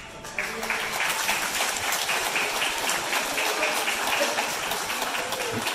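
An audience of young children applauding, the clapping starting a moment in and running on steadily.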